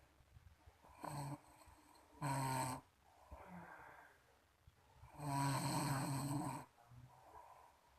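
A person snoring: a faint snore about a second in, a loud short one at about two seconds, and a long loud one from about five seconds, with quieter breathing between.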